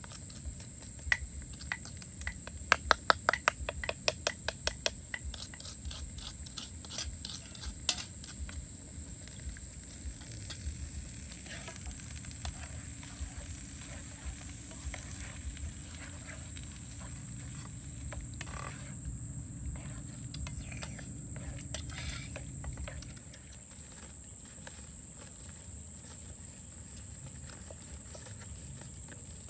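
A wooden spatula stirs and knocks against a wok of pork frying over a wood fire, with a fast run of sharp clicks in the first few seconds. After that the pork sizzles steadily under the stirring, until the sound drops away near the end.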